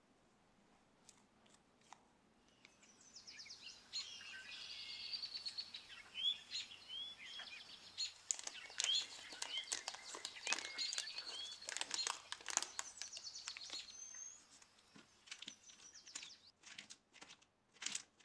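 A plastic piping bag crinkling and crackling as it is handled, with a small bird chirping and trilling in the background through the middle stretch. A few sharper crinkles come near the end as the filled bag is pressed into shape.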